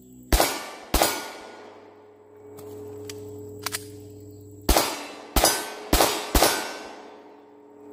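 Glock 26 9 mm pistol firing at steel targets: two shots about two-thirds of a second apart, a pause with two faint clicks of a magazine change, then four quicker shots, each followed by the ring of the struck steel.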